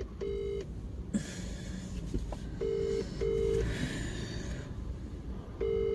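Mobile phone ringback tone heard by the caller: pairs of short, low beeps repeating about every three seconds, the call ringing unanswered.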